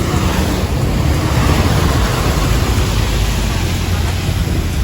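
Steady rush of wind and road noise on the microphone from a moving vehicle, heavy in the low end with an even hiss.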